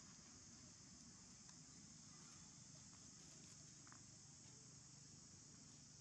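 Faint, steady high-pitched drone of insects, over a low background hum, with a few faint ticks.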